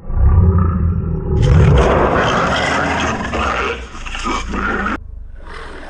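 Lions fighting: a deep low growl, then loud rough snarling and roaring from about a second and a half in. It breaks off suddenly about five seconds in, into quieter growling.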